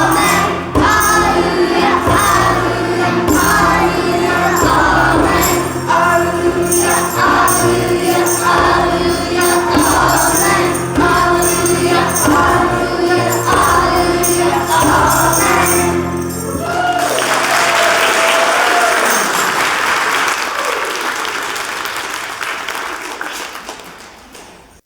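Children's choir singing a lively hymn with instrumental accompaniment, closing about 17 seconds in on a held note. Then comes applause that fades out near the end.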